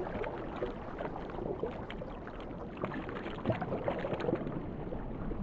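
Water rushing and bubbling, with many small pops and splashes over a steady hiss.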